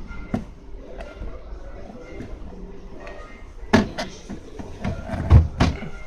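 Clear plastic freezer drawers of a NoFrost fridge-freezer being handled and knocked into their runners. There is a small click near the start, two sharp clacks a little before four seconds in, and the loudest pair of knocks near the end.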